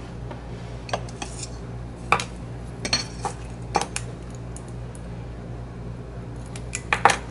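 Metal spatula clicking and scraping against a metal dish while excess bowl-coating paste is knocked off: a series of sharp clinks with a quick cluster near the end, over a steady low hum.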